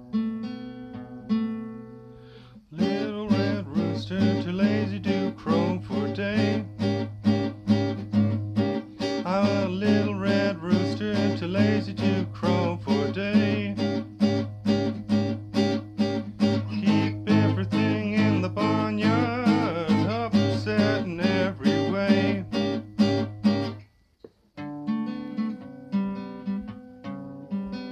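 Acoustic guitar playing a blues instrumental. A few picked notes, then from about three seconds in, steady rhythmic strumming with notes bending in pitch. The strumming stops abruptly near the end and gives way to a few picked notes again.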